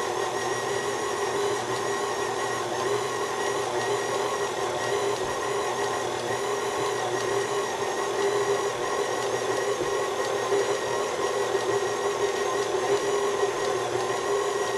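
KitchenAid Classic stand mixer running steadily, its flat beater turning through cooked chicken in a stainless steel bowl to shred it: a steady motor hum with a whine.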